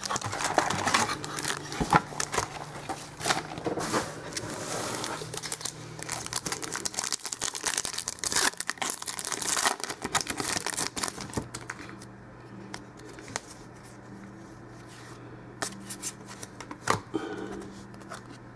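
A trading-card pack wrapper being torn open and crinkled by hand, with dense rustling and clicks for about the first twelve seconds, then quieter with a few separate handling clicks.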